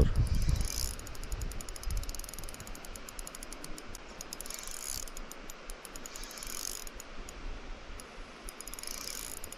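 Shimano Stella 2500S spinning reel clicking in rapid, even ticks, in spells of a second or two with pauses between, as a hooked trout is played on a bent rod.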